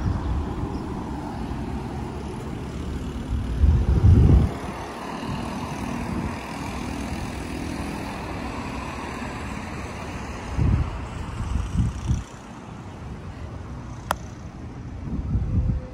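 Honda Civic Si's 2.4-litre four-cylinder running through a loud exhaust, idling, then revved in short blips: a big one about four seconds in, two close together past the middle, and one more near the end.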